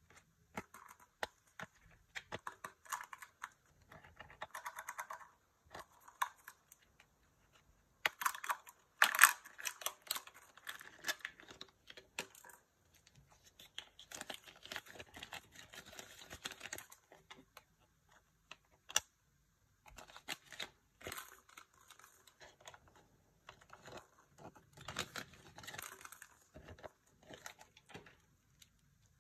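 Kinder Joy egg foil wrapper and a small paper toy wrapper being torn open and crinkled by hand, with sharp plastic clicks from handling the capsule and toy pieces. The sound comes in bouts with short pauses, loudest about eight to ten seconds in.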